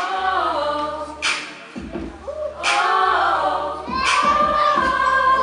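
A cappella vocal group singing: a lead voice over harmonising backing voices, ending on a held note. A sharp percussive hit falls on the backbeat about every second and a half.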